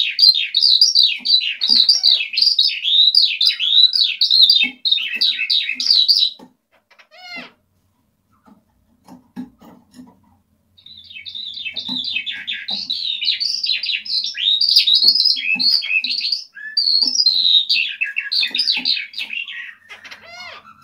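Eurasian skylark singing a long, rapid, continuous warble of high twittering notes. It breaks off about six seconds in for a few seconds of near quiet with a single rising whistle, then starts the song again and runs on almost to the end.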